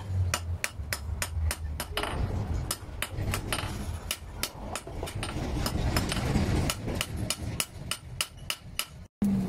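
Hand hammer forging a red-hot piece of broken chainsaw blade on a small steel post anvil: sharp, even blows at about four a second. A rushing noise swells and fades under the blows in the middle.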